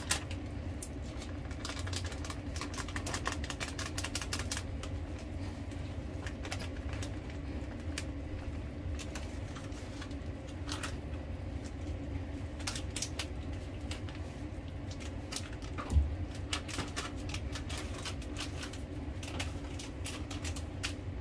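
A spoon clicking rapidly against a cup in bursts, mixing cornstarch and water into a slurry for thickening, over a steady low hum. A single thud about 16 seconds in.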